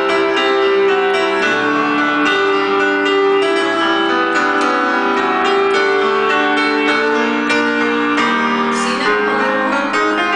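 Solo piano music played on an electronic keyboard: a flowing melody over chords, with notes held and overlapping.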